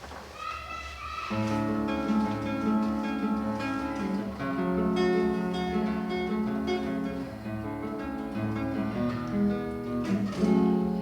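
Acoustic guitar playing a song intro: a few single plucked notes, then steady strummed chords from about a second in.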